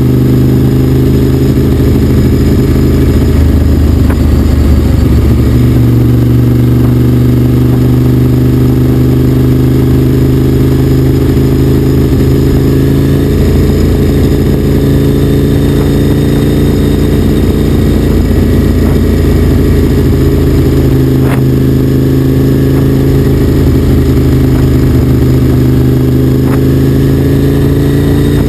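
An engine running close and loud at a steady speed, its pitch drifting slightly up and down, as if cruising.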